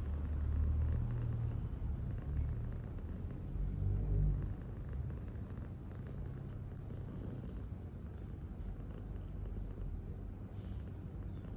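A cat's low, continuous rumble, louder with a few swells over the first four seconds or so, then steadier.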